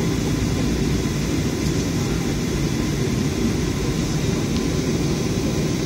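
Steady low rumble of a Boeing 737 heard from inside the cabin as it rolls along the runway after landing, engine and wheel noise running evenly throughout.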